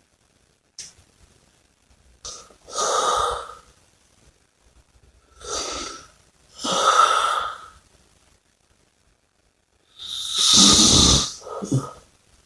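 A person snoring and breathing heavily in sleep. There is a noisy breath or pair of breaths about every four seconds, with short silent pauses between them, and the loudest and deepest comes near the end.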